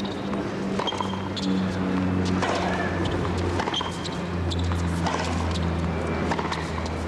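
Tennis rally on a hard court: sharp pocks of racquets striking the ball and the ball bouncing, roughly one a second, over a low steady drone that grows louder about two seconds in.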